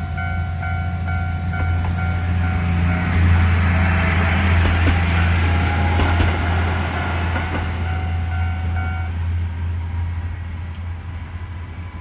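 Level-crossing warning bell ringing in even dings, about two a second, while a single-car diesel railcar passes, its rumble and wheel noise loudest in the middle. The bell stops about three seconds before the end as the barriers begin to lift.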